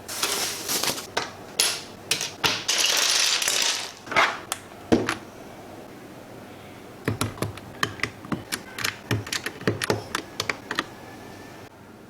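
Handling and scraping sounds for the first few seconds, including a longer scraping hiss about three seconds in and a couple of knocks. Then, from about seven seconds in, a quick run of clicking keystrokes on an FL-Esports FL980 mechanical keyboard.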